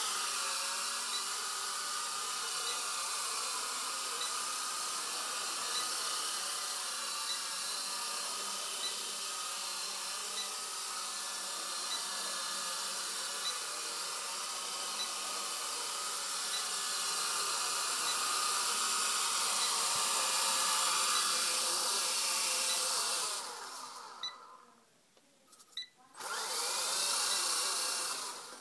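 Blade SR 120 RC helicopter's electric motors and rotors running at a steady high whine in a hover. About 23 seconds in the whine cuts out, leaving near quiet with a few light clicks. It spools up again for about two seconds before cutting out near the end.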